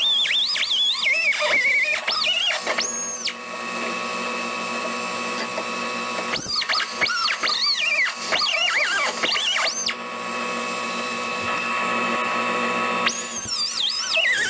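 Small pneumatic grinder with an abrasive wheel cutting into the sheet-steel body of a 1965 Ford Mustang, its high whine wavering up and down as the wheel bites the metal. It cuts in three spells, with a steadier, quieter hum in between.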